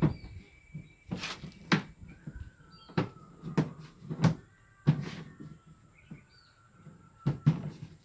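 Irregular sharp knocks and clunks, about eight in all, from hands working on the plastic cabinet of a single-tub washing machine.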